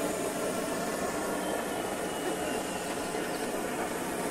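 Butane blowtorch on a gas canister running with a steady rushing hiss, singeing the last feathers off a plucked duck carcass.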